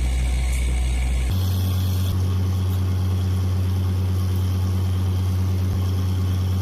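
Borewell drilling rig's engine running steadily, a deep, even hum. About a second in, the sound changes abruptly to a different steady engine note.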